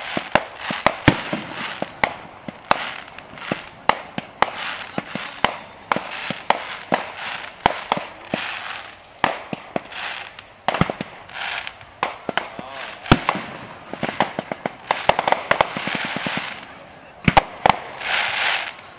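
Aerial firework shells bursting: many sharp bangs at irregular intervals, often several a second, with patches of hiss between them.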